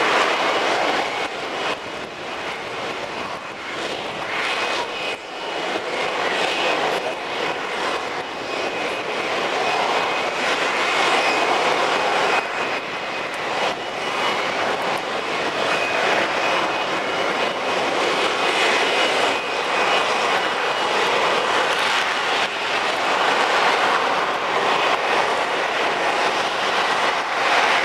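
F-35B jet running in a continuous loud roar with a faint high whine over it as the jet hovers.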